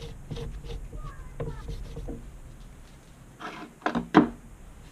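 Soft rubbing of a rag wiping the underside of a Proxxon PD 250/e lathe's compound slide, then a few sharp knocks about three and a half to four seconds in as the compound is handled.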